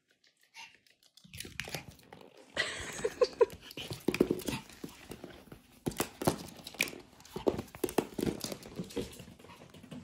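Pomeranian moving about on a hardwood floor close to the microphone: scattered clicks and scuffs with some breathy noise, mixed with knocks and rustles of the phone being handled, and a few brief faint squeaks about three seconds in. It starts after about a second of near silence.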